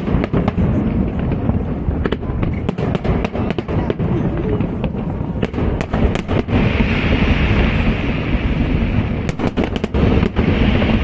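Aerial fireworks display going off continuously: a dense low rumble of bursts with many sharp cracks layered over it. From about six and a half seconds in, a higher crackling hiss joins.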